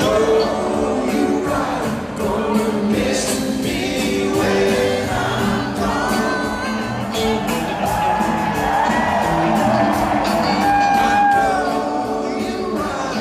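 Live rock band playing a song with singing over it, recorded from among the audience, with some crowd noise mixed in.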